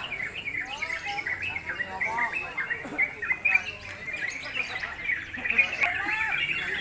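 Many yellow-vented bulbuls (trucukan) singing at once, a dense, unbroken chatter of short overlapping chirps that bend up and down in pitch.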